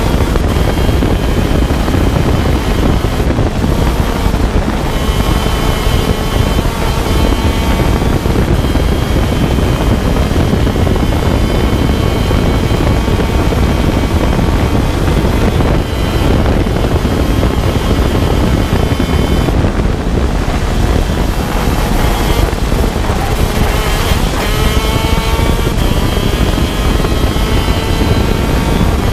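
125cc two-stroke shifter kart engine at racing speed, heard from on board, its whine climbing and dropping as it runs up and down the gears. Wind rushes over the microphone throughout.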